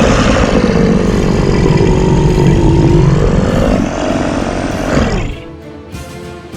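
A long, loud rumbling sound effect that stops about five seconds in, leaving quieter background music.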